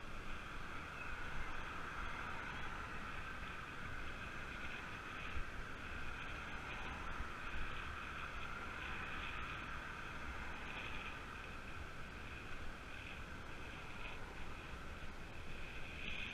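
Steady rushing of wind over the microphone of a camera on a moving road bike, with a low rumble of tyre and road noise.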